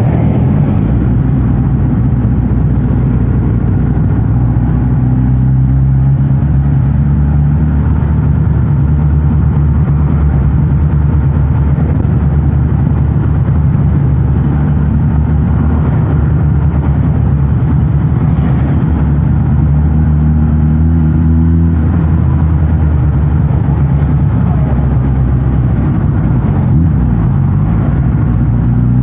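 Suzuki GSX-S1000GT's 999 cc inline-four running through its stock exhaust while riding, at low, fairly steady revs. The note holds for long stretches and rises gently a few times as the throttle opens.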